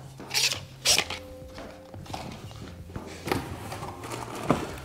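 Chair parts and cardboard packaging being handled: a few sharp knocks and scrapes as a plastic piston cover is set down and parts are rummaged out of a small cardboard box.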